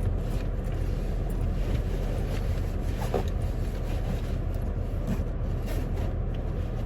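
Steady low rumble of road and engine noise heard inside a moving car's cabin, with a faint click about three seconds in.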